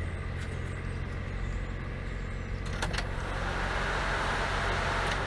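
A click about three seconds in, then a hiss that swells and holds as the Walbro electric fuel pump primes with the ignition keyed on, the engine not started, building fuel pressure through a new adjustable fuel pressure regulator.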